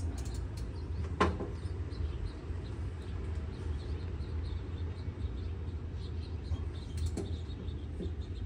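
Hand work on the bolts of a mower deck's gearbox: a sharp metal knock about a second in and two fainter knocks near the end, over a steady low outdoor rumble.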